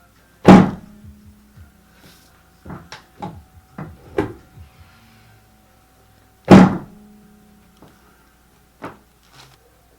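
Chiropractic drop table's drop section slamming down under adjustment thrusts: two loud thunks about six seconds apart, each with a brief ringing from the table. Several lighter knocks fall between them and once more near the end.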